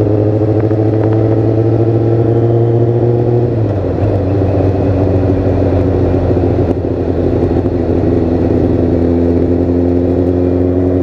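Kawasaki ZZR600 motorcycle's inline-four engine running under way, heard from the rider's helmet with wind rush. The engine note drops suddenly about three and a half seconds in, then holds lower and slowly climbs again.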